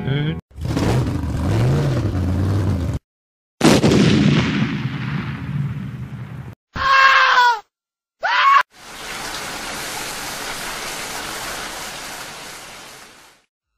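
A string of cut-together sound effects: a rushing noise, a sudden crash that dies away over about three seconds, two short pitched cries, then steady rain for about four and a half seconds.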